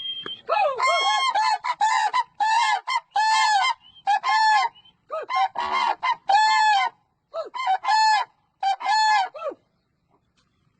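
Cranes (koonj) calling: a loud run of about a dozen short, ringing calls, each rising and falling in pitch, which stops about a second before the end.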